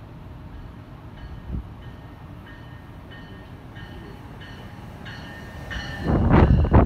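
NJ Transit commuter train arriving with double-deck coaches, its bell dinging evenly about one and a half times a second and growing louder as it nears. About six seconds in the coaches pass close by with a loud rush of wheel rumble and clattering knocks over the rails.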